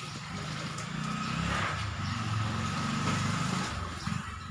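A motor vehicle engine passing, a low pulsing rumble that swells about a second in and fades near the end.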